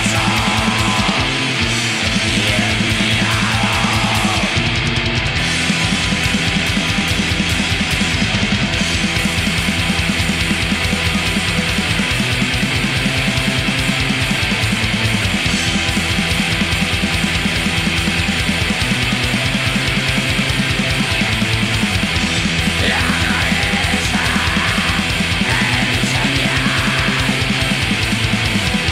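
Black metal recording: distorted guitars and bass over very fast, dense drumming, with the chords changing every few seconds and no break.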